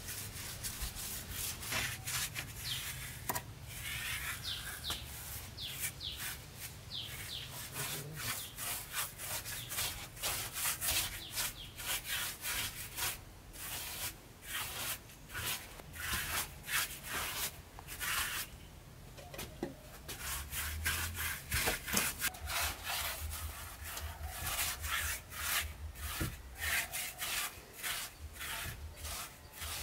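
Repeated scraping strokes of a hand tool on wood, two to three a second, with a short pause a little past the middle.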